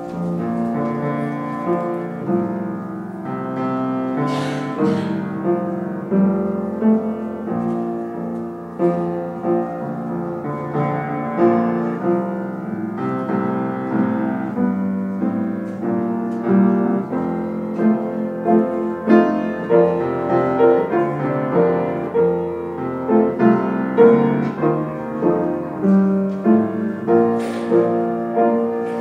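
Offertory music on solo piano: a slow, hymn-like piece of held chords, with the notes falling into a steady beat in the later part.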